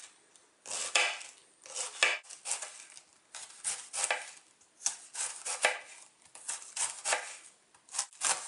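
Chef's knife slicing a wedge of green cabbage thinly on a wooden cutting board: a crisp crunch through the leaves with each stroke, about two strokes a second.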